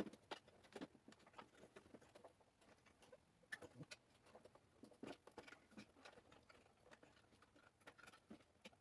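Faint, irregular small clicks and rattles of plastic electrical connectors being handled and pushed back onto a Corvette's headlight motor wiring, with a few slightly sharper clicks among them.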